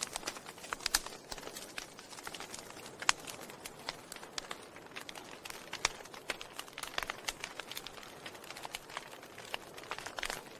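Wood fire burning in a fireplace, crackling constantly over a soft hiss, with a few sharper, louder pops, the loudest about three seconds in.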